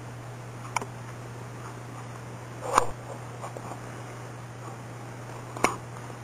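Cat pawing at a cardboard pizza box: three brief taps about two to three seconds apart, over a steady low hum.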